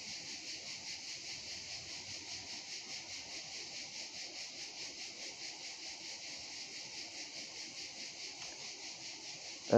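Steady, high-pitched chorus of insects pulsing rapidly and evenly.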